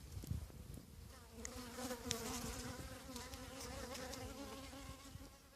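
A honeybee buzzing close by, starting about a second in and holding a steady, slightly wavering pitch: an agitated hive bee flying around the person.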